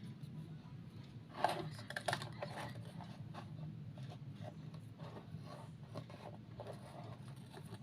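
Scattered light clicks and rustles of small objects being handled, busiest about one and a half to two and a half seconds in, over a steady low hum.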